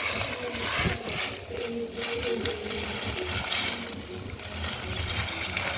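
Shallow muddy water sloshing and splashing unevenly as it is stirred by hand while fishing.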